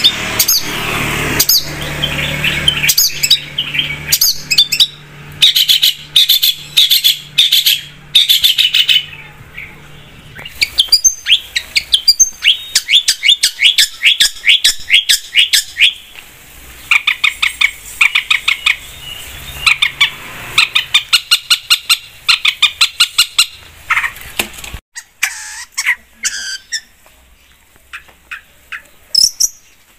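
Long-tailed shrike (cendet) singing: a fast, varied string of sharp chirps, harsh calls and rapid note series. About 25 seconds in the background hum cuts out abruptly and the song goes on more sparsely.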